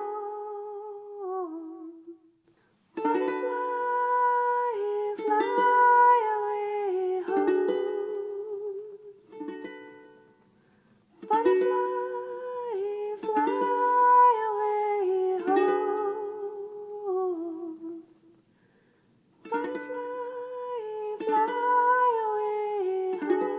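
A song's closing music: plucked strings with a wordless hummed or sung melody, in three phrases separated by short pauses.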